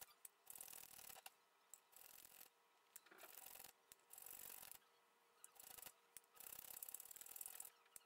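Faint scraping strokes of a small wooden plane crosspin being shaped by hand, irregular and each under a second, with short gaps between them and several close together near the end.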